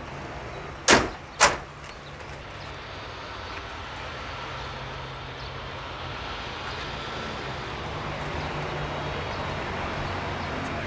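Two doors of a Ford pickup truck slammed shut about half a second apart, followed by a steady background hum.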